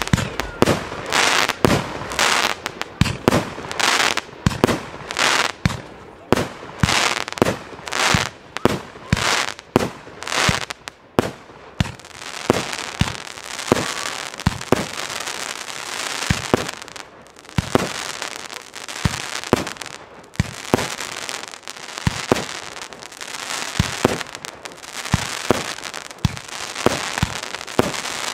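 Fireworks display: a rapid run of sharp bangs, two or three a second, for about the first twelve seconds, then a dense crackling hiss with scattered bangs.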